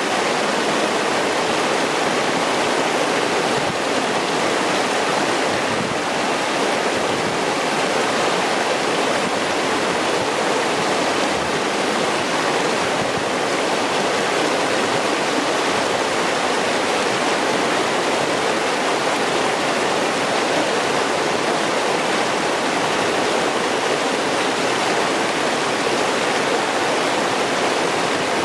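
Clear mountain stream rushing and babbling over rocks in a steady, even flow.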